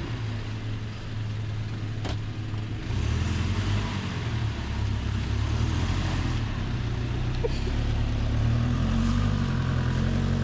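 A vehicle's engine revving under load as it struggles for grip on slippery mud, getting louder about three seconds in and rising slightly in pitch near the end.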